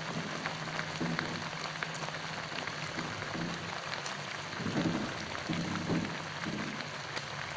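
Raw shrimp sizzling as they are added to hot sautéed spice paste in a wok and stirred with a metal spatula: a steady hiss with scattered small crackles.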